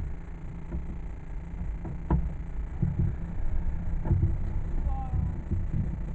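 Low rumble of a car driving, heard from inside the cabin, with scattered knocks and rattles. The sharpest knock comes about two seconds in.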